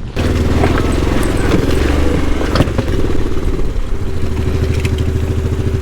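ATV engine running under way, its pitch shifting a couple of times, with a few clatters and knocks mixed in.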